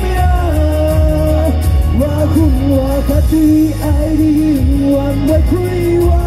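Male vocals singing a pop song over a backing track with a steady heavy bass, played loud through a stage sound system.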